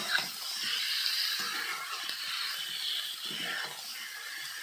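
Chicken pieces frying in hot oil in a kadhai, a steady sizzling hiss, with a metal spatula scraping and stirring through them now and then as the meat browns.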